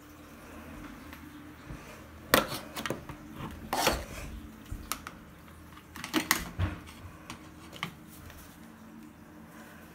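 Scattered sharp knocks and clicks, a cluster of louder ones between about two and a half and four seconds in and another around six seconds in, with a faint steady room background.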